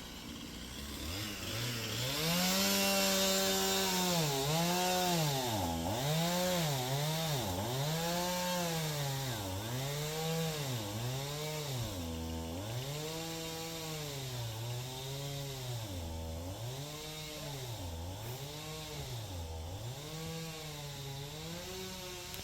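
Chainsaw engine revved over and over, its pitch rising and falling about once a second, held at high revs for a couple of seconds early on.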